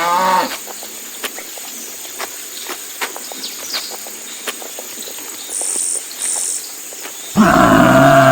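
Outdoor nature ambience with scattered bird chirps and two short high insect buzzes. The tail of a cow's moo ends right at the start, and a loud, low, sustained animal call begins about seven seconds in.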